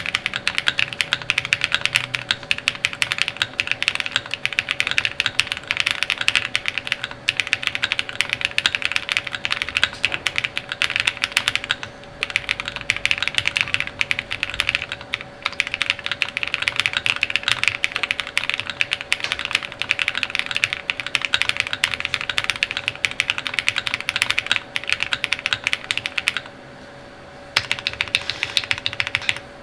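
Fast, continuous typing on a KBDFans Odin mechanical keyboard with lubed Durock POM switches in a polycarbonate plate, foam-dampened, with DCX Hyperfuse keycaps. The typing pauses for about a second near the end.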